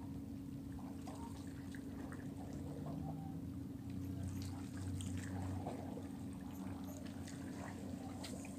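Small waves lapping and trickling against shoreline rocks, with a few faint ticks, over a steady low hum.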